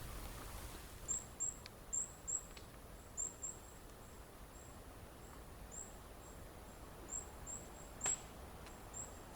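A faint series of short, thin, very high whistles, about two a second, in the manner of a hazel grouse's whistled call.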